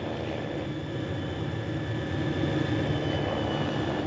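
Helicopter in flight: a steady rumble of rotor and engine noise.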